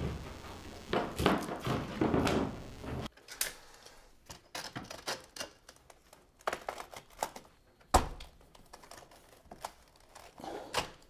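A sheet of sandpaper rustles and crinkles as it is handled. About three seconds in this gives way to a few separate clicks and knocks as a long dust-extracting sanding board with its vacuum hose is taken from its wall mount, the sharpest knock about eight seconds in.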